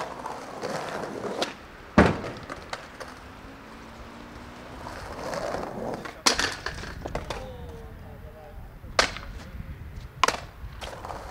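Skateboard wheels rolling on paving, broken by sharp clacks of the board's tail and deck hitting the ground as tricks are popped and boards come down. The loudest clack is about two seconds in, with others about six, nine and ten seconds in.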